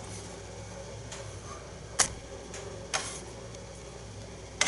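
A few sharp, light ticks, about two seconds in, near three seconds and near the end, from hands unwinding excess thread off a rod-wrapping dowel, over a faint steady low hum.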